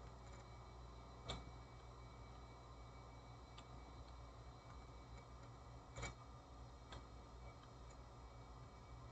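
Near silence over a low steady hum, broken by two sharp clicks from working a computer, about a second in and about six seconds in, with a few fainter ticks between.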